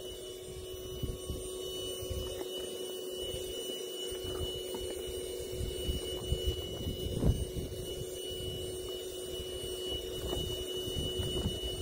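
Electric air pump running with a steady hum as it inflates an inflatable kayak, with wind gusting on the microphone.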